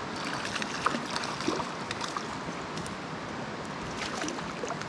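Small mountain trout stream running over rocks: a steady rush of water with scattered gurgles and small splashes.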